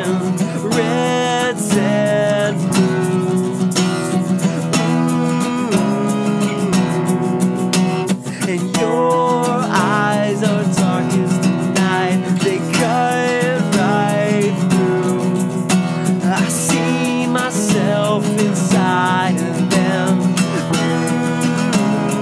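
Live band music: an acoustic guitar strummed steadily while a Korg stage piano plays chords and melody.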